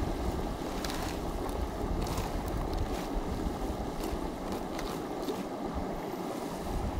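Steady rushing outdoor noise with an unsteady low rumble, and a few faint clicks.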